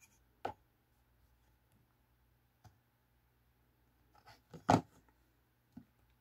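Short wooden knocks and clatters as the kit's wooden grip base is handled and set down on a desk: one light knock about half a second in, a quick cluster of knocks around four and a half seconds in with one loud knock, and a smaller one just after.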